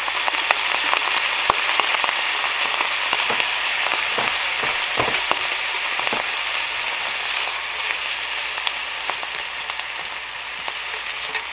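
Sliced red onions sizzling in butter and olive oil in a hot pan, with a little water just added: a steady frying hiss scattered with crackles and pops.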